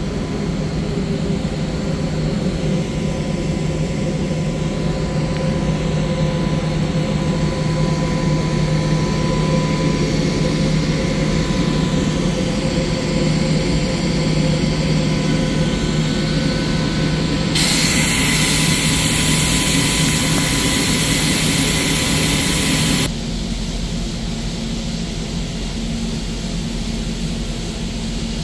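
Frecciarossa ETR500 high-speed train standing at the platform, its equipment running with a steady loud hum. A bit past halfway a loud hiss starts suddenly, lasts about five seconds and cuts off sharply, after which the hum is quieter.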